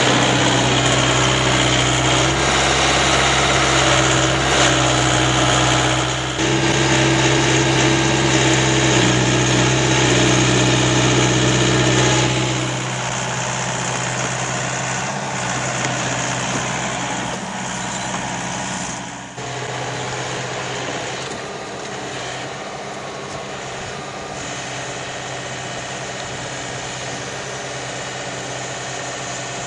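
Mini excavator's diesel engine running steadily, a constant low hum that drops in level about twelve seconds in and again near nineteen seconds.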